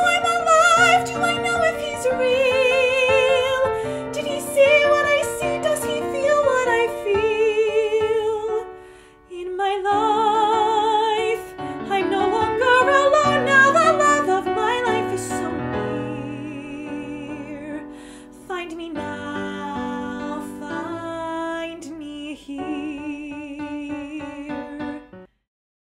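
A female soprano sings musical-theatre lines with strong vibrato over piano accompaniment. The music stops shortly before the end.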